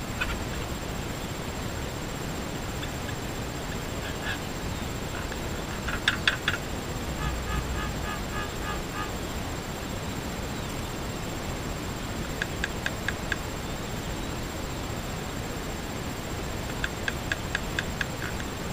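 Mynas at a bird table calling in several short bursts of rapid clicking notes, the loudest about six seconds in, followed by a quick run of repeated chattering notes. Under them runs a steady background hiss.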